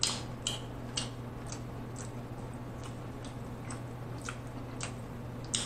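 Close-miked mouth sounds of chewing: about ten soft, wet clicks and smacks, roughly half a second to a second apart, over a steady low hum.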